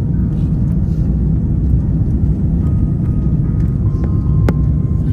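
Steady low rumble of an airliner's engines and airflow heard inside the passenger cabin during the descent, with a single sharp click about four and a half seconds in.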